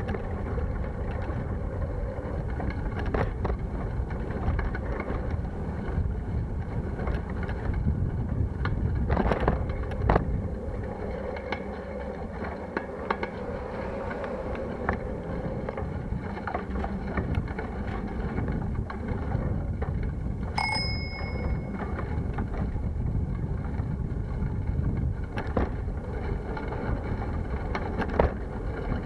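A bicycle being ridden over a rough road: steady wind on the microphone and road rumble, with a few knocks from bumps. About two-thirds of the way through, a bicycle bell rings once with a short ring.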